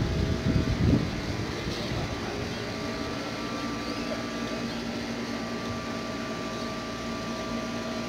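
A steady mechanical hum holding several fixed pitches, like a motor or fan running. Low buffeting, like wind on the microphone, in the first second.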